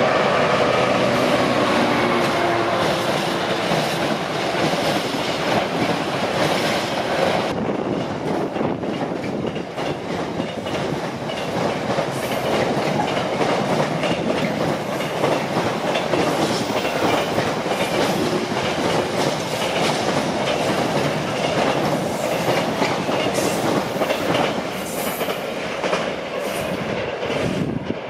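Class 66 diesel-electric freight locomotive, with its two-stroke V12 engine, passing at speed, its engine sound falling in pitch in the first few seconds. A long train of container wagons follows, with steady rumbling wheel noise and frequent knocks as the wheels cross rail joints.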